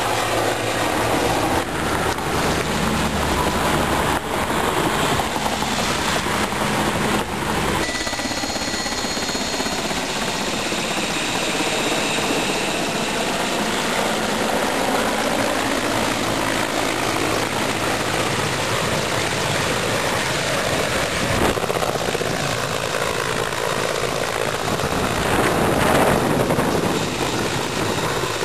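Helicopter running, a loud steady rotor and engine noise whose sound shifts about eight seconds in.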